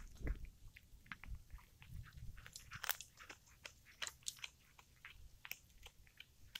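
Domestic cat chewing a freshly caught mouse: faint, irregular wet crunches and clicks as its teeth break the small bones.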